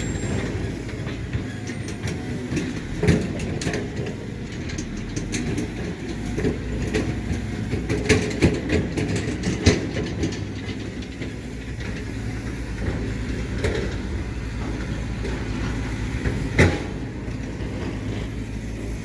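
Heavy earthmoving machinery at work: a diesel engine running with a steady low rumble, under irregular metallic clanks and knocks. The sharpest knock comes near the end.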